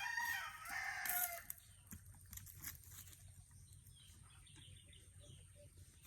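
A rooster crowing once, a long pitched call that ends about a second and a half in.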